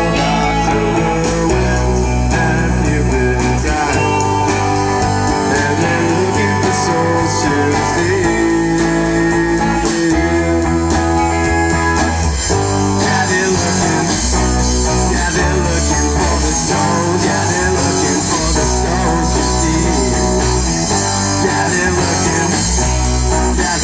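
Rock band playing live: two electric guitars, a bass guitar and a drum kit, with sustained bass notes changing every couple of seconds.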